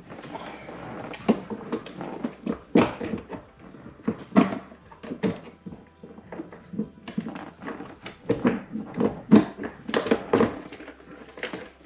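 Irregular plastic clacks, knocks and rattles as a fish finder and its plastic mounting bracket are handled and fitted together by hand, with louder knocks about a second in, near the middle and toward the end.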